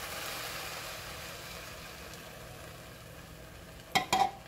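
Coconut milk being poured over rice, a soft steady pour that tails off over about three seconds. Two sharp knocks about four seconds in.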